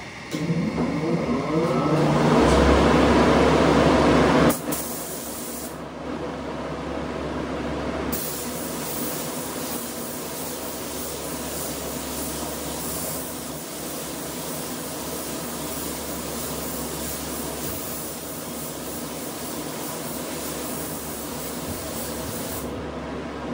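A motor starts up with a rising whine for the first few seconds, then a steady hiss of compressed air through a gravity-feed spray gun spraying paint onto a motorcycle helmet, cutting off near the end.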